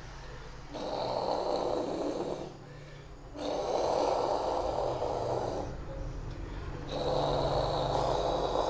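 A person imitating a Spinosaurus roar with his voice: three long, rough roars of about two seconds each. The first comes about a second in, the next near the middle, and the last runs on to the end.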